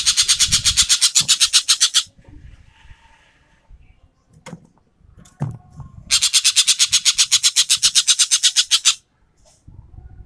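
Ekek keling bird giving its rapid rattling 'tembakan' call: two long bursts of fast, harsh repeated notes at about ten a second. The first ends about two seconds in, and the second runs from about six to nine seconds in.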